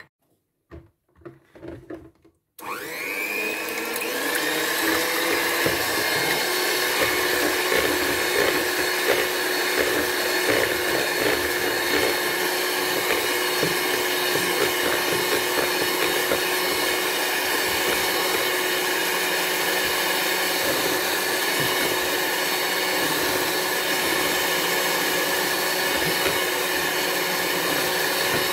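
A few light taps, then about two and a half seconds in an electric hand mixer starts with a rising whine and runs steadily, its beaters whipping egg whites into foam in a bowl.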